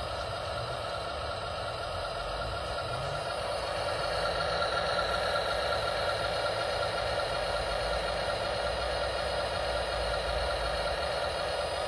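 Steady engine-like idling drone with a higher whine layered over it, typical of an RC model's running sound, getting a little louder about four seconds in.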